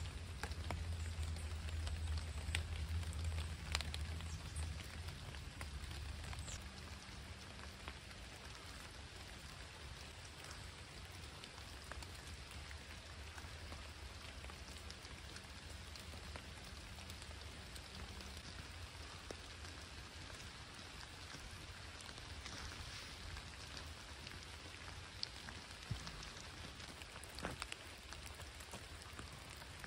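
Light rain falling on forest foliage: a steady soft hiss with scattered single drops ticking. A low rumble fades out over the first few seconds.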